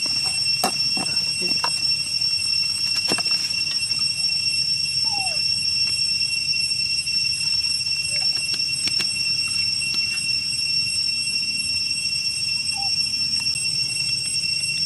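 A steady, high-pitched insect chorus drones without a break. Young macaques give a couple of short, soft, falling squeaks, one about five seconds in and one near the end.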